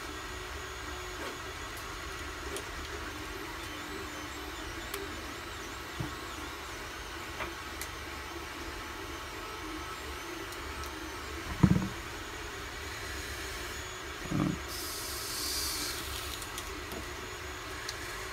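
Steady low room hum with light handling of tools and wire on a rubber work mat: a few small clicks, two soft knocks about twelve and fourteen seconds in, and a brief rustle just after the second.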